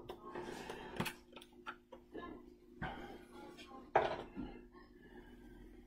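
Handling noise from a sealed trading-card box being unpacked: light clicks, taps and rustles of cardboard and card packaging, the sharpest knock about four seconds in, over a faint steady hum.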